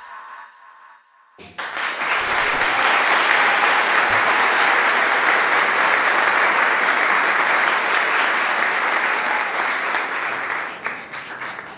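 Audience applauding: the clapping starts about a second and a half in, holds steady and dense, and dies away near the end.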